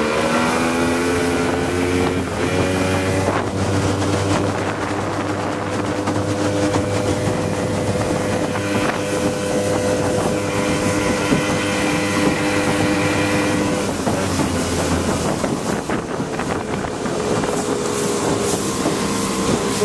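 Small outboard motor on an open boat running at speed, its pitch rising over the first couple of seconds as the throttle opens, then holding steady. The engine note weakens about fourteen seconds in, leaving wind buffeting the microphone and water rushing past.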